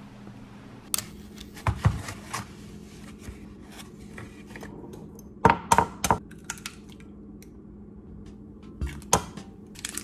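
Eggs being cracked on the rim of a glass bowl: sharp knocks with a short glassy ring, three in quick succession about five and a half seconds in and another a little after nine seconds. A few lighter knocks and clicks come earlier, from handling.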